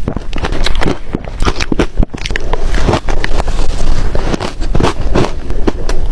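Ice being bitten and chewed: loud, rapid, irregular crunching and cracking.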